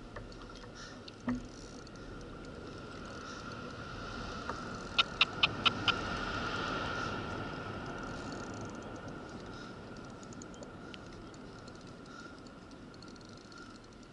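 Water lapping around a fishing kayak, swelling a little midway, with a quick run of five sharp clicks about five seconds in.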